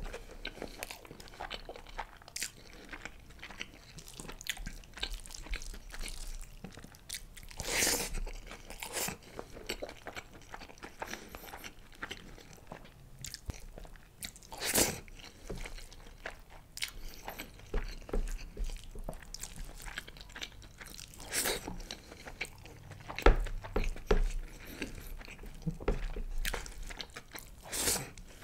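Close-up chewing of a mouthful of chicken biryani: irregular moist mouth clicks, with a few louder ones scattered through.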